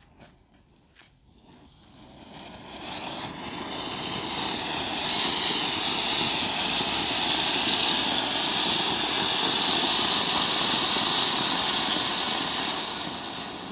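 Big-size anar (flower-pot fountain firework) spraying sparks: a steady hiss that starts as a small fizz, builds over the first few seconds to a loud rush, holds, and dies down near the end.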